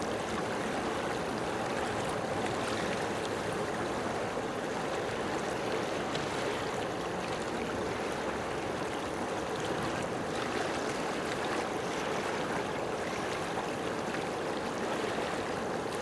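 Steady rushing water, an even wash of noise with no separate splashes or other events.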